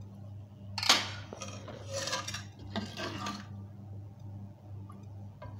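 Metal ladle knocking and scraping against the inside of a pressure cooker while stirring the nihari gravy: one sharp clank about a second in, then about two seconds of clinking and scraping before it settles. A steady low hum runs underneath.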